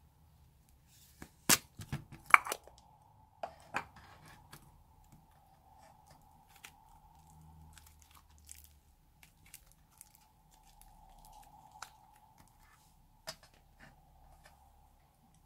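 A plastic slime egg snapping open with a few sharp clicks about a second and a half in, then soft crackling and tearing as the rainbow clay slime is pulled out and stretched by hand, with scattered small clicks.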